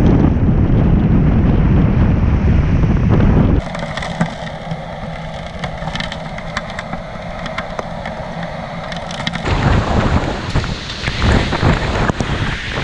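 Hurricane-force wind buffeting the microphone over a rough bay. About three and a half seconds in, this cuts to rain pattering in many sharp ticks on a camera at the surface of flood water. A few seconds before the end, gusting wind and crashing surf return as storm surge breaks over a seawall.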